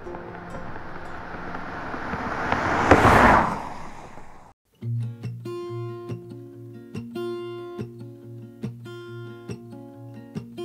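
A box truck drives past on the road, its noise swelling to a peak about three seconds in and then fading. After a brief cut to silence, acoustic guitar music starts, plucked and strummed in a steady rhythm.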